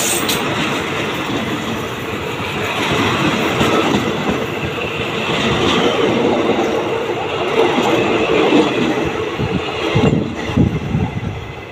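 Passenger carriages of a Thai train rolling past close by: a steady rumble and clatter of steel wheels on the rails. A few heavier clacks come near the end as the wheels cross a rail joint.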